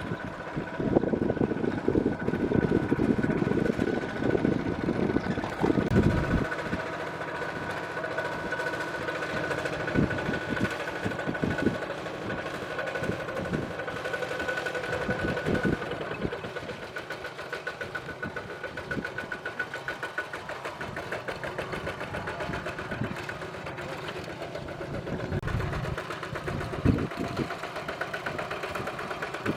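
Miniature Kubota RT120 power tiller's motor running steadily under ploughing load, a fast, even chugging with a thin whine. Louder irregular knocks and rustling come through in the first several seconds.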